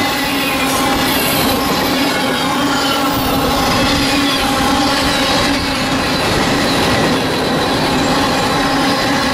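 Freight train's tank cars and covered hopper cars rolling past close by: a loud, steady rumble of steel wheels on rail with a constant whine from the wheels running over it.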